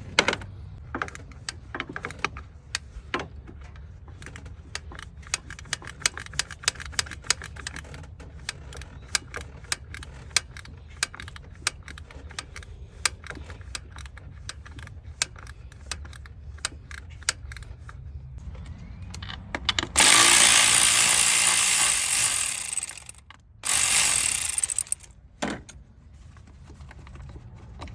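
Hand ratchet wrench clicking in quick runs as the coil-pack bolts on a Tahoe's 5.3 V8 are backed out. About twenty seconds in come two loud bursts of hissing, the first about three seconds long and the second about one.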